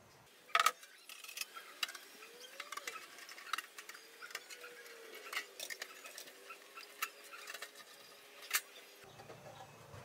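Small clicks and light metal knocks from a screwdriver taking out the screws of a metal engine-computer (ECM) case and handling its cover, with a sharper knock about half a second in and another near the end. A faint wavering tone sits underneath.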